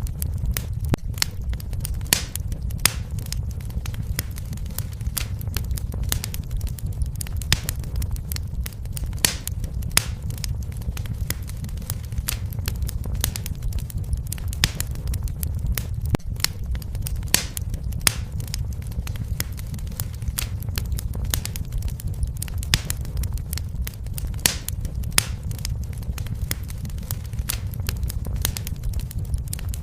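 Fire burning in a fireplace, crackling with many sharp irregular pops over a steady low rumble.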